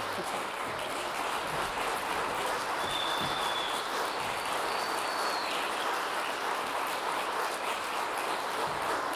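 Theatre audience applauding steadily, with two short high tones over it partway through.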